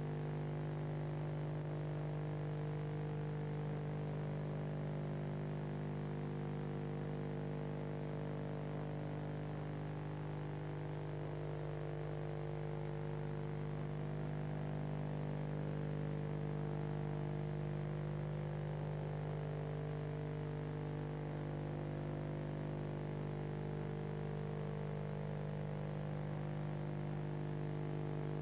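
Steady electrical mains hum with a stack of overtones, unchanging throughout, from the soundtrack of an old transfer.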